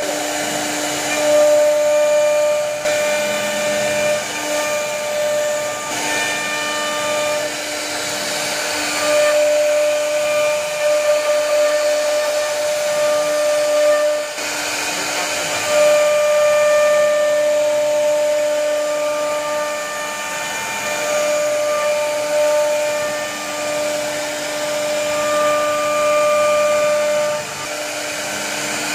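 CNC router spindle running and its bit cutting into a wooden door panel: a steady motor whine over a hiss of cutting. The whine's pitched tones drop out and return every few seconds.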